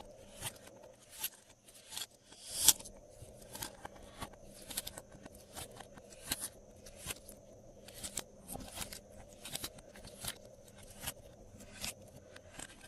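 Glossy slime worked by hand, giving sharp sticky clicks and popping air pockets about one or two times a second, with fainter crackles between.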